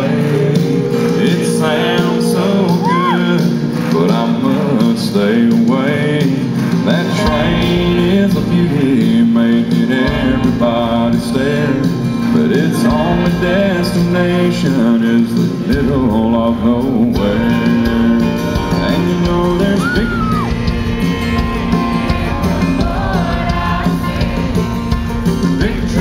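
Live country band music played loud through a concert PA, with a singing melody line over steady chords. The deep bass is thin at first and fills in about two thirds of the way through.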